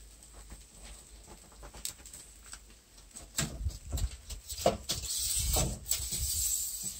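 Wood embers crackling faintly under a grill, then from about three seconds in a few knocks and a scraping metal slide as the wire grill rack is pulled forward along its metal guide rails.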